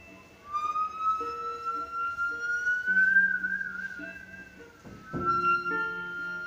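Musical saw bowed in one long singing tone that slides slowly up in pitch and wavers midway, over short low notes from a second hand-held instrument. A soft knock about five seconds in as a fresh bow stroke starts the tone again.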